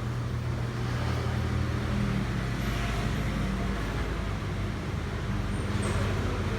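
Steady low mechanical hum with an even hiss, unchanging throughout, with no distinct joint cracks standing out.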